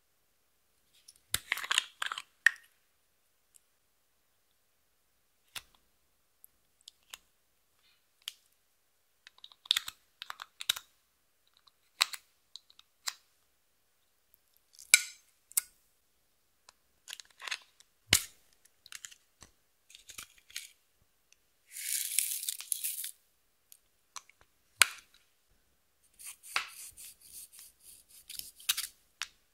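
Close-up handling sounds of makeup being worked over a glass dish: scattered small plastic clicks, taps and scrapes. Near the end comes a run of crumbly crunching as a pan of pressed pink eyeshadow is broken up with a tool.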